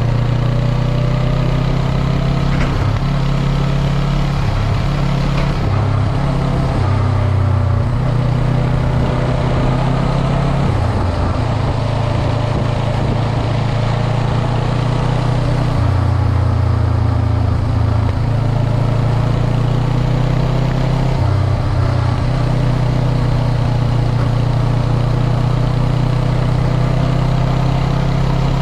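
Motorcycle engine running at cruising speed with steady wind and road noise; its pitch drifts gently up and down as the throttle changes.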